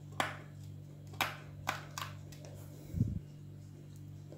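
A few light clicks and soft taps from a finger pressing the middle of icing-sugar-coated dough balls on a baking tray, with one dull low bump about three seconds in. A steady low hum runs underneath.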